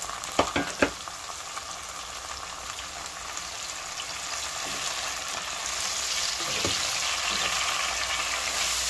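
Sliced onions and chopped garlic sizzling in hot oil in a saucepan while a spatula stirs them through. There are a few sharp knocks in the first second, and the sizzle grows louder from about halfway.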